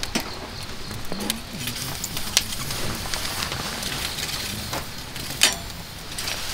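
Wood fire crackling in a folding stainless steel fire pit: a steady low rush with a handful of sharp pops and clicks, the loudest about five seconds in, as long fire tongs shift a burning log.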